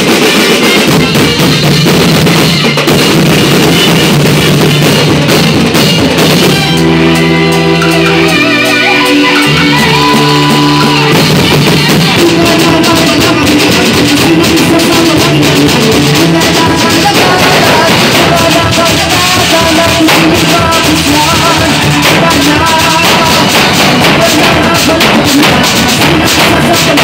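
Live festival drum band: drummers beating large metal drums, bass drums and cymbals in a loud, driving beat, with electric guitar and keyboard playing over it. A held chord about seven seconds in gives way to a melody line over the drumming.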